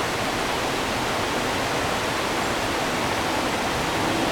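A river flowing: a steady, even rush of water with no breaks.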